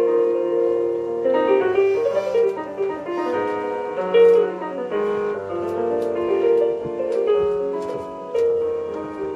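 Piano music, a melody of held notes over chords.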